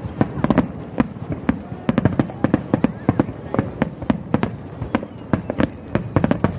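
Aerial fireworks shells bursting in quick succession: sharp bangs at irregular spacing, several a second.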